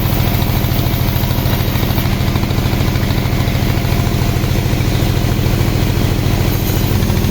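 Sawmill machinery running steadily: an engine-driven saw with a fast, even low pulsing, used for sawing mahogany.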